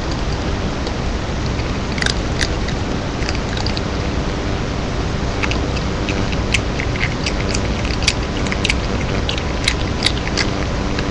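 Siamese cat crunching Dorito tortilla chips: irregular sharp crunches that begin about two seconds in and come more often in the second half, over a steady background hiss.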